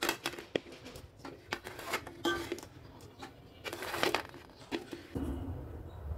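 Kitchen tongs clinking and scraping against fluted metal cupcake moulds and the rim of an aluminium pot as steamed cupcakes are lifted out: a scatter of light, irregular taps and clicks.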